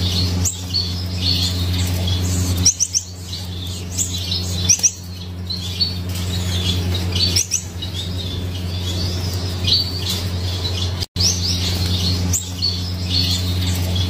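Gouldian finches chirping and calling, many short high chirps and squeaks scattered throughout, over a steady low hum.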